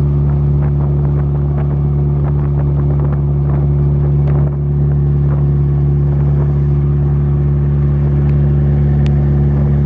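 Engine of a small wooden river ferry boat running steadily under way, a deep continuous drone, with a brief dip about halfway through.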